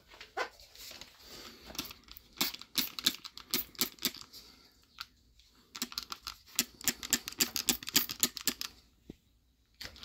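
Hand trigger spray bottle squirted in quick repeated spritzes, two runs of them with a pause about halfway. It is spraying bubble leak-detection solution onto the joints of a nitrogen-pressurized AC evaporator coil to hunt for a refrigerant leak.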